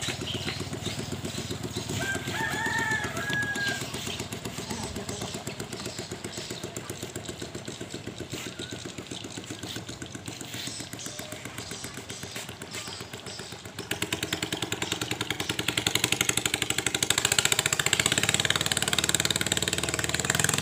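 Ketinting longtail racing boat engine running steadily at speed, with a rooster crowing once about two seconds in. About fourteen seconds in, the engine noise jumps abruptly louder and stays loud.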